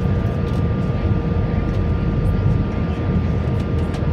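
Steady cabin noise inside an Airbus A321 in flight: a low, even rumble of engines and airflow, with a faint steady hum of a few tones over it.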